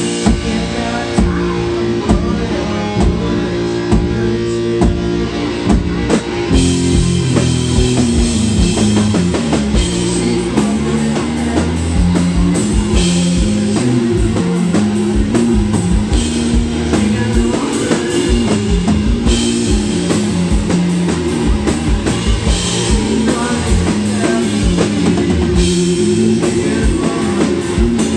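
Live rock band playing an instrumental stretch: a driving drum kit with electric guitar and bass. The band gets fuller and louder about six seconds in.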